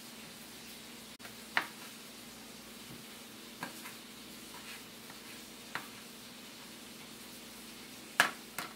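Chef's knife tapping on a plastic cutting board while dicing tomatoes: a few sharp, separate knocks about a second or two apart, the loudest pair close together near the end, over a faint steady hum.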